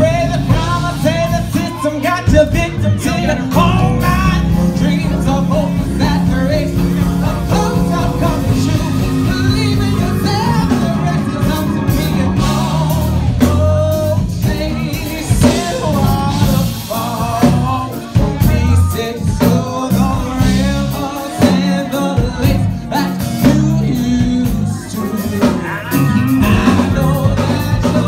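A live band playing a soul/R&B song with drums and guitar, a singer's voice carrying the melody over it, heard from among the audience.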